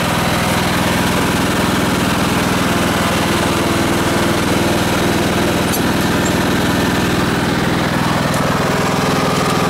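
Kohler Command 18 hp engine on a Cub Cadet riding mower running steadily at an even speed, which the owner calls sounding real good.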